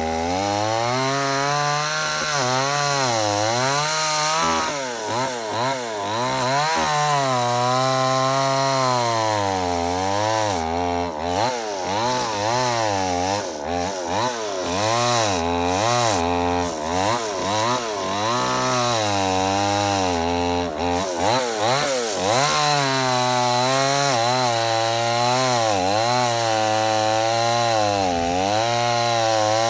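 Chainsaw running through a big log, its engine pitch repeatedly dipping and recovering as the chain loads up in the cut.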